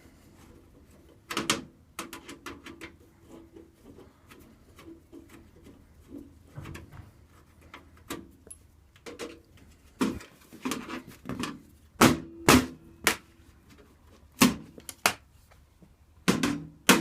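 Irregular sharp knocks and clanks of metal parts against a steel desktop computer case as a drive is worked loose, some strikes leaving a short metallic ring. They come sparsely at first and grow louder and more frequent in the second half.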